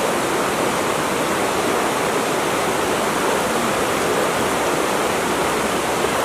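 Flowing water rushing steadily, an even wash of sound that holds at the same level throughout.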